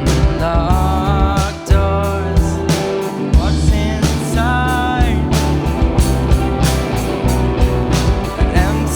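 Live indie rock band playing, with drums and guitars under a sung lead vocal.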